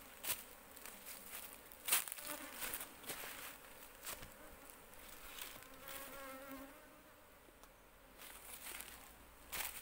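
Asian honeybees (Apis cerana) buzzing around the microphone: single bees hum past about two seconds in and again around six seconds in, with a few sharp clicks or rustles between.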